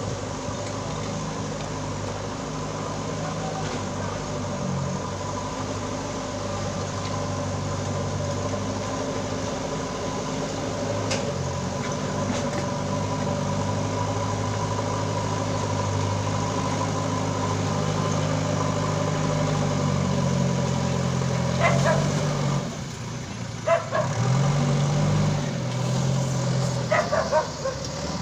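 JCB backhoe loader's diesel engine working as the machine digs, its pitch shifting up and down a few times. Several short, sharp sounds come near the end.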